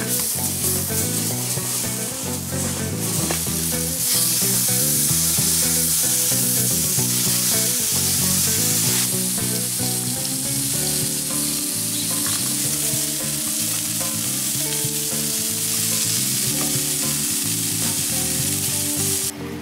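Marinated carne asada and chicken sizzling on a hot charcoal grill grate, the sizzle louder from about four seconds in.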